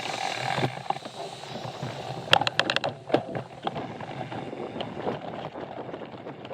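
Mountain bike rolling over a rough trail: a steady rush of tyre and wind noise with scattered knocks, and a quick rattle of about half a dozen sharp clicks about two seconds in.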